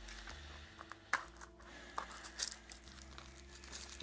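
Plastic shrink wrap being torn and crinkled off a boxed disc set, a run of small crackles with a few sharper snaps.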